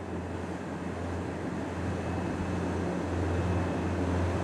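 Motorboat engine running steadily at planing speed, a low drone over the rush of water, growing gradually louder.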